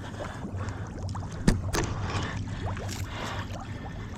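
Water sloshing and splashing as a person wades through flooded timber, with a couple of sharper splashes about a second and a half in.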